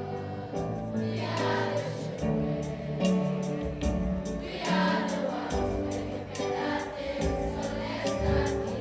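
A school choir singing in harmony, its voices holding long, slow notes.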